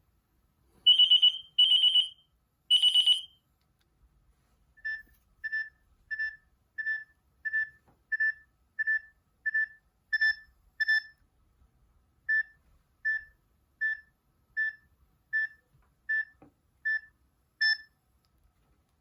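Nokia 6260 mobile phone playing its built-in ringtones through its small speaker: three loud high electronic notes, the last held longer, then after a short pause a steady run of short high beeps, about one and a half a second, with a brief break midway.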